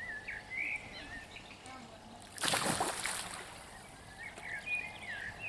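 A carp breaking the surface with one splash in the lake margin about two and a half seconds in, feeding where bread has been put in the edge. Small birds chirp around it.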